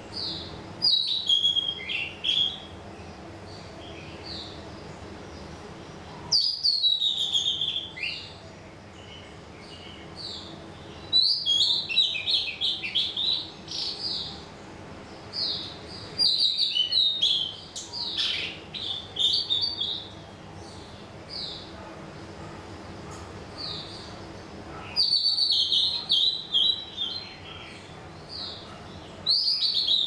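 A songbird singing loud phrases of quick, high notes that fall in pitch, each phrase lasting a couple of seconds and repeated every few seconds, with single chirps in between.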